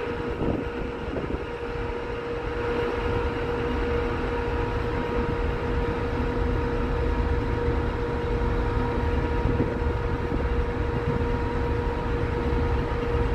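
Steady drone of a ship's engines and machinery under way, with a constant hum over a low rumble, and wind on the microphone.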